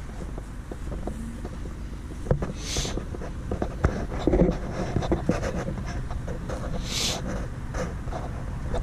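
Backhoe engine running steadily, with scattered knocks and clicks. Two short hisses come about three seconds in and again about seven seconds in.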